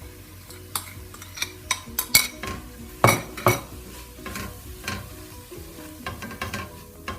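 A utensil stirring and tapping against a frying pan as vegetables are stir-fried, with a light sizzle. There are irregular clicks and scrapes, the loudest a pair about three seconds in.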